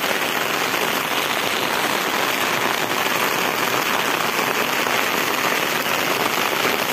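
Steady rain falling, a dense, even patter of drops, described as not very strong.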